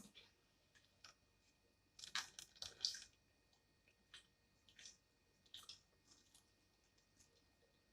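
Mouth sounds of someone eating fried food: faint, sporadic chewing and crunching, busiest about two to three seconds in.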